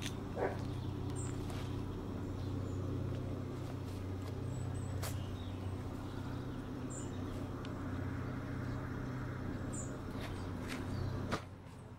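A steady low droning hum that stops abruptly near the end, with a few short high bird chirps over it.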